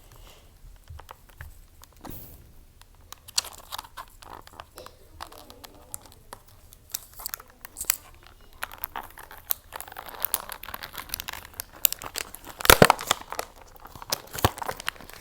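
Thin plastic crinkling and being peeled, with many small sharp clicks and taps from handling phone parts; the densest, loudest crackling comes about thirteen seconds in.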